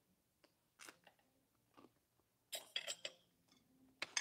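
Metal knife and fork clinking against a plate: a few faint clicks, then a cluster of ringing clinks about two and a half seconds in and a sharp clink near the end.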